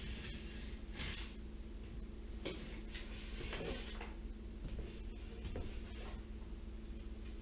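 A few short scrapes and rustles of a piece of drywall being handled, over a steady low hum.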